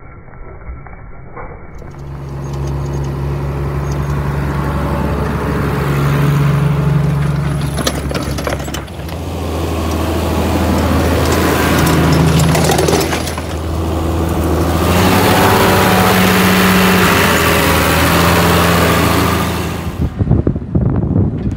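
Case MXM155 tractor engine running steadily under load while it pulls a tine cultivator through the soil, its pitch shifting a few times.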